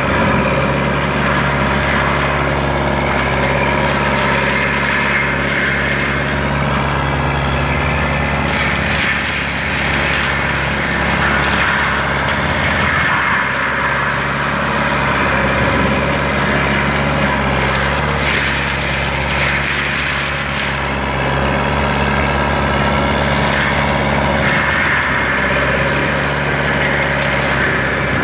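Lamtrac LTR6125 tracked forestry carrier's diesel engine running steadily under load, driving a Denis Cimaf 180D mulcher head, with a dense hiss from the mulcher over the engine's hum and a few brief surges and dips as it works through brush.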